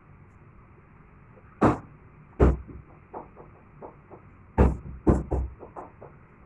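A series of sharp knocks and clicks: two loud ones about two seconds in, a quick cluster about five seconds in, and lighter clicks between, over a faint low hum.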